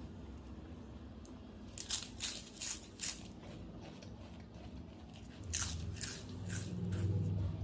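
Close-up crunching as someone bites into and chews crisp food, in two short bursts of several sharp crunches each. A low steady hum comes up near the end.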